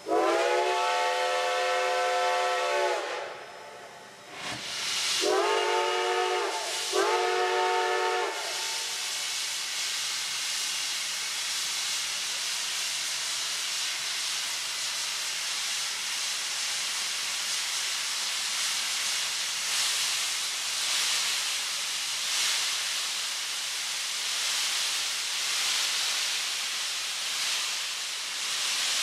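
Chime whistle of Reading 2102, a 4-8-4 steam locomotive: one long blast of about three seconds, then two shorter blasts. After them comes a steady hiss of steam blowing from its open cylinder drain cocks.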